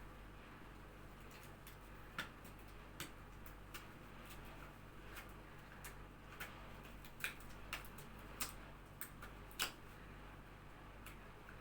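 Scattered light clicks and taps of equipment being handled and set out, coming at irregular intervals with the sharpest ones in the second half, over a low steady hum.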